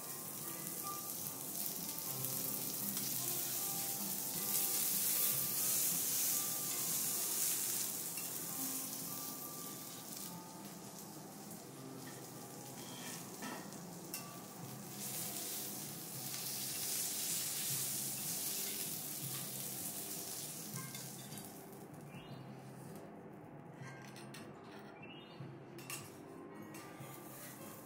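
Wagyu beef sizzling on a hot steel teppanyaki griddle, a steady hiss that is loudest in the first third and dies away near the end.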